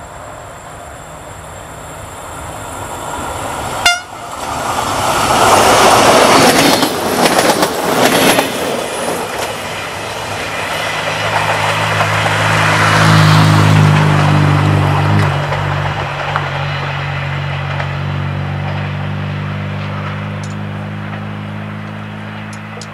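Siemens Desiro diesel multiple unit approaching on the track, its diesel engines giving a low steady drone that swells to its loudest about halfway through and then fades. Before that, a sharp click about 4 s in is followed by several seconds of loud rushing noise.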